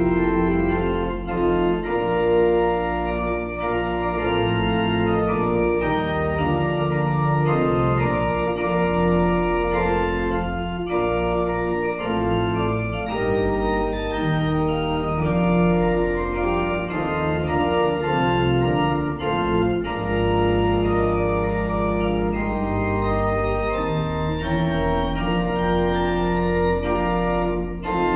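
Church pipe organ playing the postlude: sustained chords that change every second or so over deep pedal notes.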